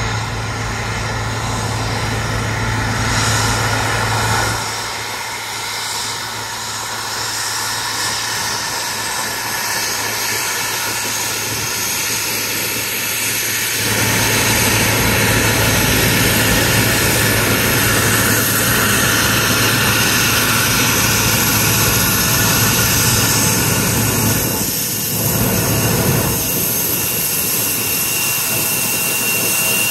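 Bombardier CRJ900 regional jet's rear-mounted General Electric CF34 turbofans running at taxi power, a steady jet whine with a constant low hum beneath it. The sound grows louder from about halfway through as the jet rolls past.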